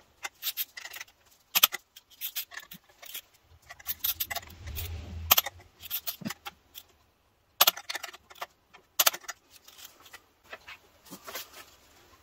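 Metal clicks and clinks of a torque wrench being worked on the high-pressure fuel pipe nuts as they are tightened, coming in irregular bursts.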